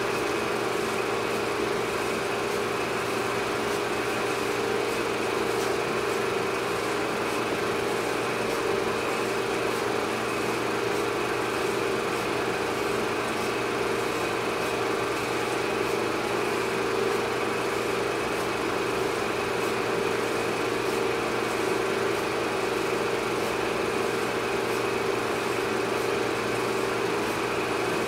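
Steady, unchanging machine-like drone: a low hum with a hiss over it.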